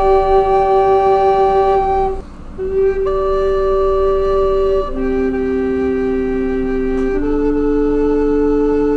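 Background music: slow, flute-like wind instruments holding long notes, often two at a time, that change every few seconds, with a short break about two seconds in.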